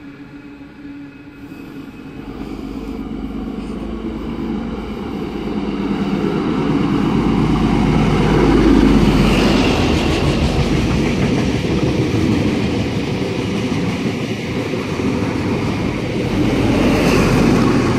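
XPT diesel passenger train approaching and running through the station without stopping. The power car's engine and the wheels on the rails build to their loudest about nine seconds in, then the carriages keep going past with steady wheel and rail noise that swells again near the end.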